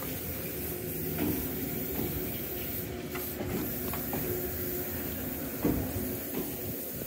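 Steady electrical hum and hiss from a red Meitetsu electric train's onboard equipment, with a few soft knocks.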